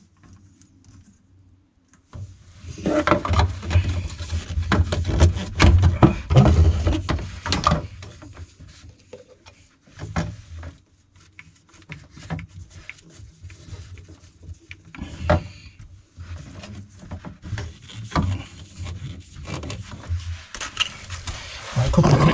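Hands working a white plastic condensate pipe into place against a boarded wall: rubbing, scraping and knocks, busiest from a couple of seconds in to about eight seconds, then scattered taps and clicks.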